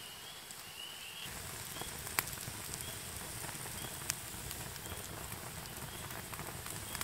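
Small stick campfire burning: a steady crackling hiss with a few sharp pops, the loudest about two seconds in and another about four seconds in.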